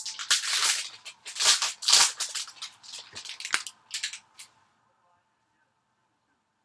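Baseball cards being handled: a string of short rustling, sliding scrapes of card and plastic that stops about four and a half seconds in.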